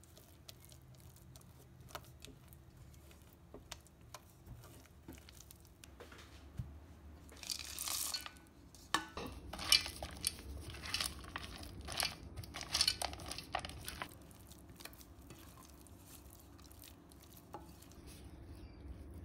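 Silicone spatula stirring and scraping thick choux dough against the sides of an enamel pot. About eight seconds in there is a brief rustle, followed by several seconds of busier clicking and scraping as white chocolate wafers are mixed into the dough, then quieter scraping again.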